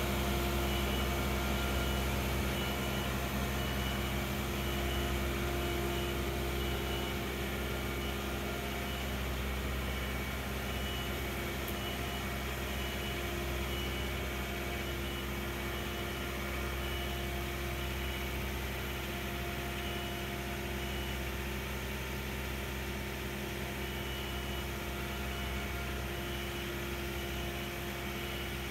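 John Deere compact utility tractor's diesel engine running steadily as it drives away, slowly growing fainter. A high beep repeats about twice a second through much of it.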